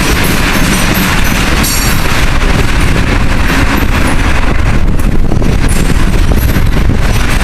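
Freight train tank cars rolling past close by. The wheels clatter over the rail joints and the diamond crossing in a steady stream of clicks and knocks, over a loud, continuous rumble.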